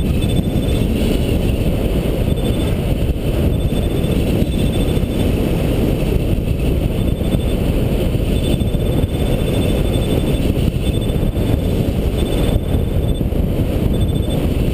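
Steady wind rush from the airflow over the microphone of a camera mounted on a hang glider in flight. Faint, rapid high-pitched beeping comes and goes in short runs over it, the climb tone of a hang-gliding variometer in a thermal.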